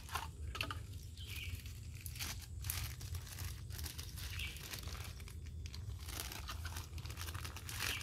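Irregular crackling and rustling, a rapid scatter of short crackles over a steady low rumble.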